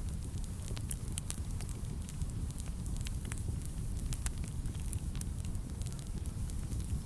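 Wood fire burning in a fireplace: a steady low rumble of flames with frequent sharp crackles and pops scattered throughout.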